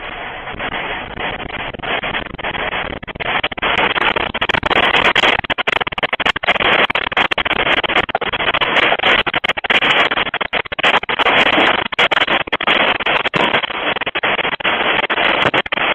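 Earthquake shaking: a continuous rattling and rumbling with dense rapid clattering. It builds over the first few seconds and then stays loud.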